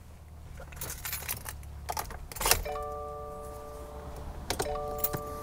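Car keys jangling and clicking at the ignition of a 2018 Subaru WRX. About halfway through, a steady electronic chime of several held tones starts; it breaks off briefly near the end and resumes.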